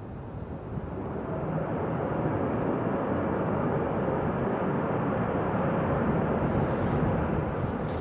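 Airbus A380-841's four Rolls-Royce Trent 900 engines running as the jet rolls out on the runway after touchdown: a deep jet rumble that swells about a second in and eases slightly near the end.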